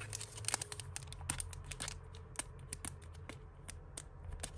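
Scattered light clicks and taps of costume jewellery and a card-and-plastic packet being handled, irregular and quick like typing, over a faint low hum.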